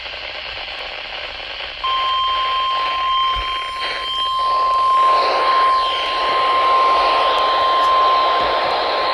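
NOAA Weather Radio 1050 Hz warning alarm tone, sent as part of the required weekly test: after about two seconds of radio static, one steady, unwavering tone comes in and holds, over a hiss of static.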